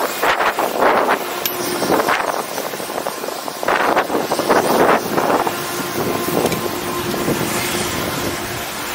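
Wind buffeting the camera microphone on a moving open chairlift, gusting hard for the first five seconds or so and then settling to a steadier rush, with a faint steady hum underneath.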